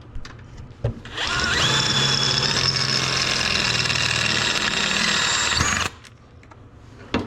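Power drill running for about five seconds, drilling out a rivet that holds a stock brake line to a side-by-side's trailing arm. It comes up to speed about a second in and stops abruptly, and a sharp click follows near the end.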